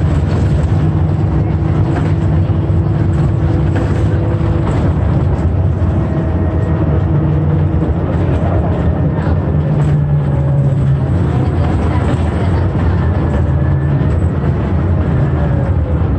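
Transjakarta BRT bus running, heard from inside the cabin: a steady loud engine drone with road noise.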